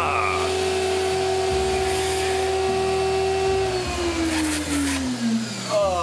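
Shop vacuum running steadily with its hose sealed over a pig's eye socket through a clear tube. About four seconds in it is switched off, and the motor whine falls in pitch as it spins down.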